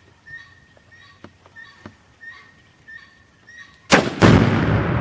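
Faint, regular chirping for the first few seconds. Near the end comes a rifle shot, and about a third of a second later a second loud boom, the Tannerite target 100 yards downrange going off, followed by a sustained loud rumble.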